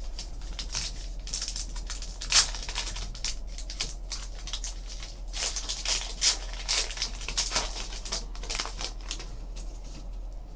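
Trading-card pack wrapper being crinkled and torn open by hand, with the cards handled: a busy run of crackles and sharp clicks.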